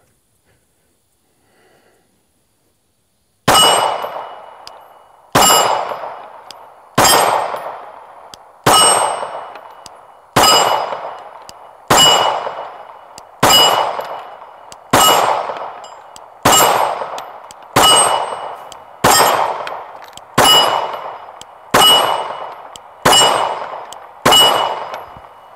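Gen 5 Glock 19 9mm pistol fired about fifteen times at a steady pace, roughly one shot every second and a half, starting a few seconds in. Each shot is followed by the ringing clang of a struck steel plate.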